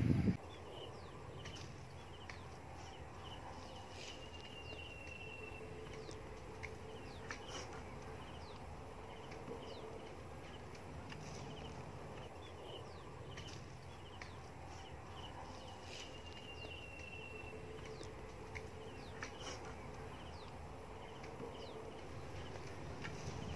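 Faint outdoor ambience: birds chirping, with short repeated calls and two longer held whistled notes, over a steady low rumble and a few light clicks.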